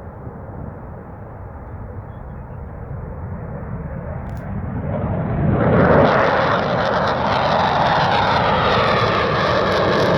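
F-15 Eagle's twin turbofan jet engines at full afterburner on takeoff. The noise builds steadily over about six seconds, then stays loud and steady with a shifting hiss as the jet passes.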